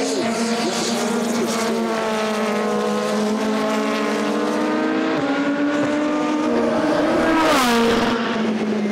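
Formula Two race car engine running at high revs, holding a steady pitch with a gear change about five seconds in. Near the end a car goes past close, louder, its pitch falling away.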